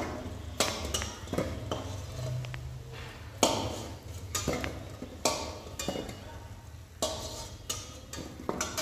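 Steel spatula clinking and scraping against a steel kadhai and a steel plate in irregular sharp strikes as fried gujiya are lifted out of the oil, over a faint sizzle of hot frying oil.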